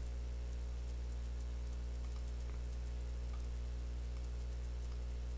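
Steady electrical mains hum in the recording, with a few faint clicks about midway.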